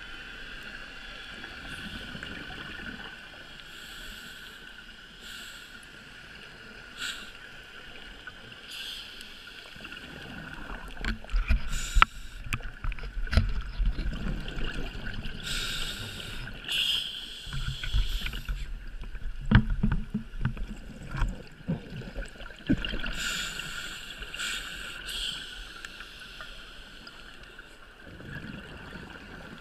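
Underwater sound of scuba diving: the diver's regulator lets out short bursts of exhaled bubbles every few seconds over a steady hum. Through the middle the bubbles come louder and rumbling, with sharp clicks.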